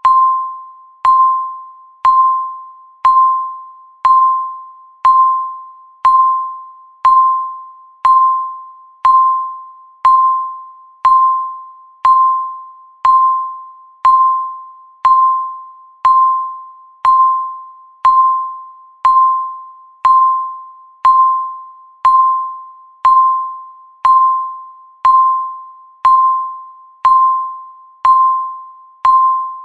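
Countdown timer beeping once every second: a short electronic tone of one steady mid pitch, starting sharply and fading away, repeated evenly.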